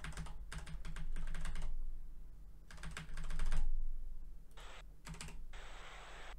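Computer keyboard keys pressed in quick bursts of clicks, the arrow-key taps that skip a video player forward. About four and a half seconds in, a steady hiss starts.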